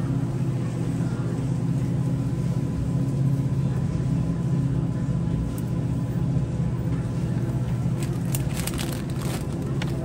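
Steady low mechanical hum of a grocery store's refrigerated drinks coolers. Near the end come a few sharp clicks and rattles.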